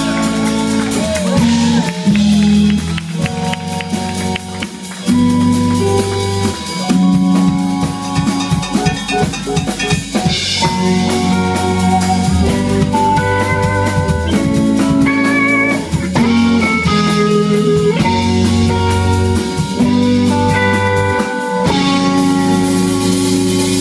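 Live funk-rock band playing: a drum kit with rimshots and bass drum keeping a steady groove under a guitar line with wavering, bent notes.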